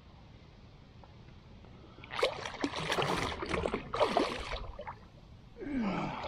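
A hooked catfish thrashing and splashing at the surface beside a kayak as it is pulled in on a hand line: a run of splashes starting about two seconds in, then a pause and more splashing near the end.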